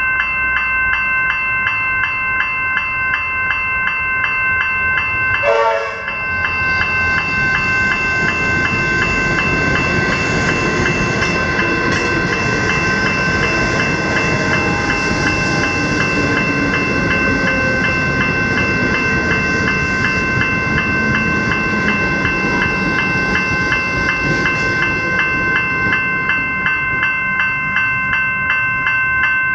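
Level crossing electronic bells ringing steadily with a fast pulsing tone while an electric suburban train passes, its noise swelling from about eight seconds in and fading again near the end. A brief falling tone sounds about six seconds in.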